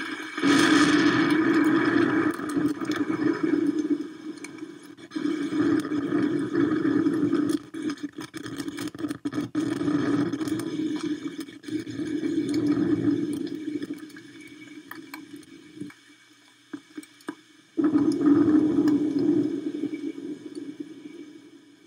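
Storm rain and wind buffeting the nest camera's microphone, in loud surges a few seconds long with short lulls between; one surge starts abruptly near the end.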